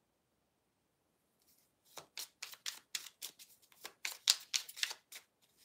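A deck of oracle cards being shuffled by hand: after a silent start, a quick, uneven run of short card slaps and riffles begins about two seconds in and stops shortly before the end.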